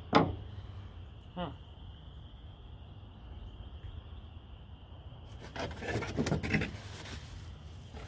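Cardboard box and bubble wrap being handled: a sharp knock right at the start, a lighter knock about a second later, then a burst of crinkling and rustling packing material a little after halfway through.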